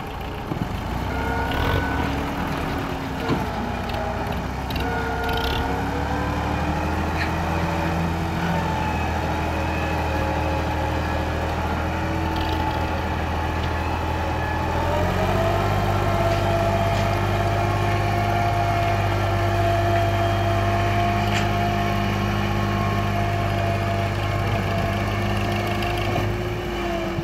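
Massey Ferguson 260 tractor's diesel engine running under load, pulling a heavily loaded earth trolley. The engine note steps up about halfway through and then holds steady.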